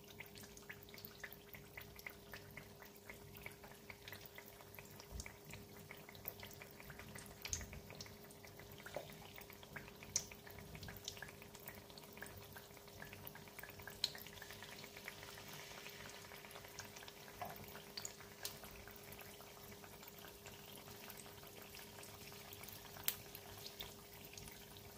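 Battered banana slices frying in shallow oil in a nonstick pan: a faint, steady sizzle with scattered small pops and ticks, over a faint steady hum.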